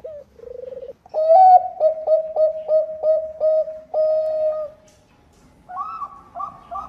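Zebra dove (Bangkok-type perkutut) singing. A short purring trill is followed by a run of about eight quick, clipped cooing notes. Near the end a higher-pitched run of paired coos begins.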